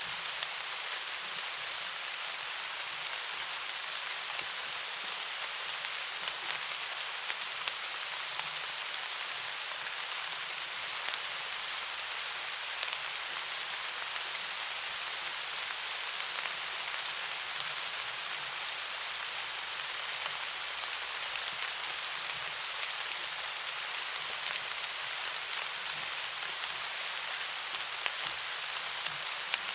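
Steady rain, an even continuous hiss, with scattered sharp ticks of individual drops.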